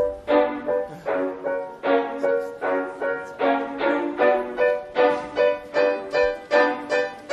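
Background music: a repeating pattern of plucked or struck notes, about two to three a second, the instrumental intro of a pop song.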